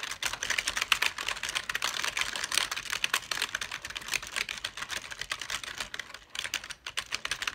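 Fast typing on a computer keyboard: a dense run of quick key clicks, with a brief lull near the end.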